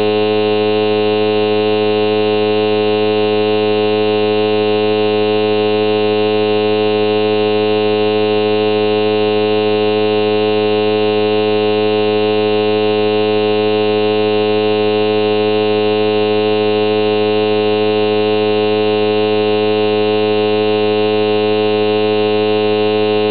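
Loud, steady electronic buzz: one unchanging pitched tone with many overtones, held without a break.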